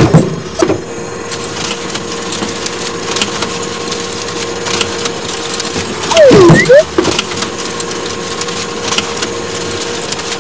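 Cartoon machine sound effects for a toy claw crane: a steady mechanical hum over rapid crackling, clicking noise, and about six seconds in a brief, louder squeaky sliding sound that rises and falls in pitch.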